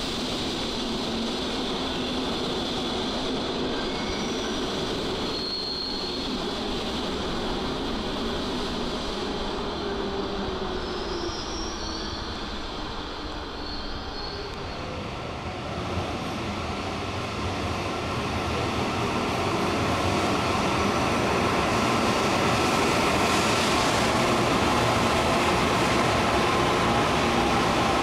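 Electric metro trains at a station platform. In the first half a train moves along the track with short, high wheel squeals. From about two-thirds of the way in, another train arriving grows louder, with a whine that falls in pitch as it slows.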